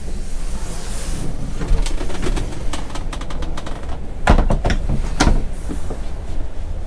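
Clicks and knocks of a motorhome's wooden washroom door being handled and opened, the two loudest knocks about four and five seconds in, over a steady low rumble.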